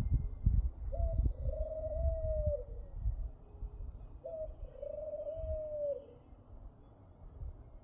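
Two long calls held on one steady pitch, each about a second and a half, with a short rise at the start and a drop at the end. A low rumble on the microphone sits under the first half.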